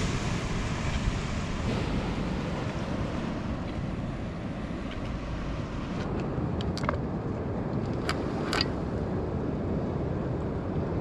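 Ocean surf washing steadily, with wind rumbling on the microphone. Two or three faint, brief clicks a little past the middle.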